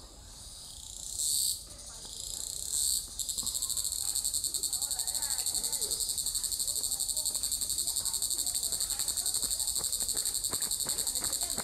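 An insect calling with a high, buzzing song: two short buzzes, then from about three seconds in a continuous, fast-pulsing buzz. Faint ticks and rustles sound beneath it.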